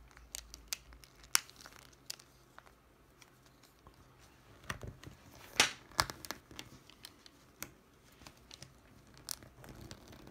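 Oakley Monster Dog plastic sunglasses frame and replacement lens clicking and creaking under the fingers as the lens is pressed and worked into the frame, a scatter of small ticks and clicks, the sharpest about a second and a half in and again about five and a half seconds in. The lens has not yet snapped fully into its seat.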